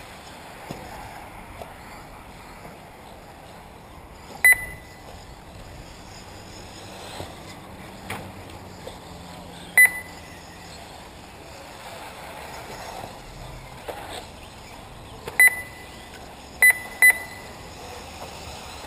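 Short, high electronic beeps from a race lap-timing system, five in all at uneven intervals, the last three close together, over steady background noise; each beep marks a car crossing the timing line.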